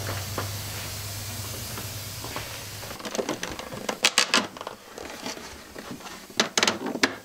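Trim being fastened along a backsplash with a pneumatic brad nailer: two sharp shots, about four and six and a half seconds in, with light handling taps between them. A steady low hum runs through the first three seconds.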